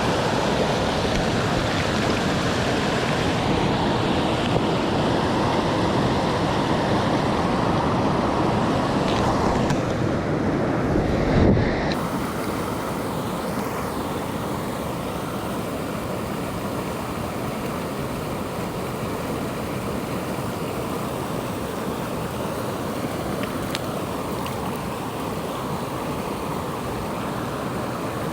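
Steady rush of flowing river water. About eleven seconds in there is a brief low bump, after which the rush is a little quieter.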